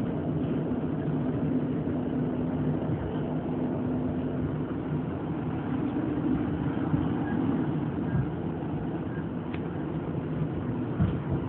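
Steady running noise inside an old diesel multiple-unit passenger carriage: a continuous rumble of the train under way with a steady low hum and a few faint clicks.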